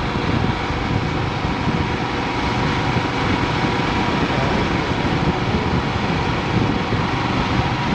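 Motorcycle being ridden at road speed: the engine runs steadily under a constant rush of wind and road noise on the rider's microphone.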